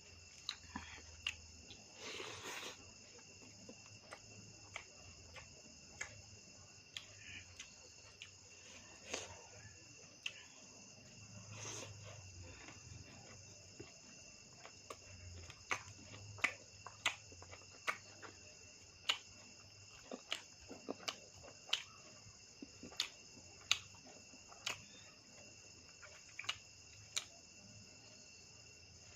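Crickets trilling steadily in the background, with frequent short sharp clicks and smacks of someone eating.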